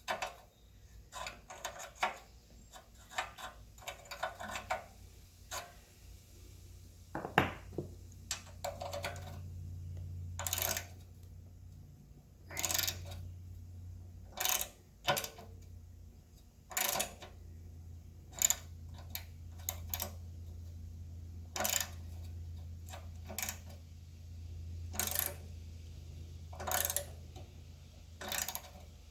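Metal hand tools clicking and clinking against the pump's rusted nuts and housing as they are worked loose, in short separate bursts every second or two. A low steady hum joins in about a quarter of the way in.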